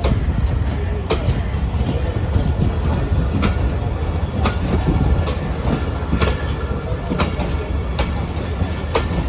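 Passenger train coaches rolling past at low speed, wheels clacking over rail joints every second or so over a steady low rumble.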